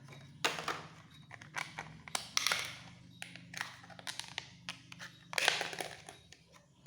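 Hands handling a small NVMe SSD and its plastic packaging: a run of irregular taps and clicks, with two louder rustling scrapes about two and a half and five and a half seconds in, over a faint steady low hum.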